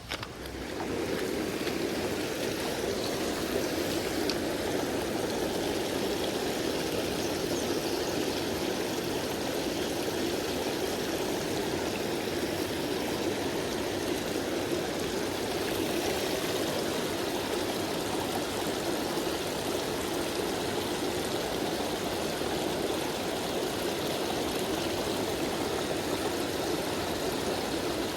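Creek water running steadily over rocks, a constant rushing that comes up about a second in.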